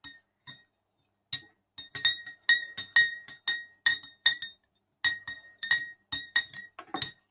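A spoon clinking against the side of a glass bowl while stirring borax powder into water to dissolve it: repeated sharp clinks, about three a second, each ringing at the same clear pitch, with a short pause about a second in.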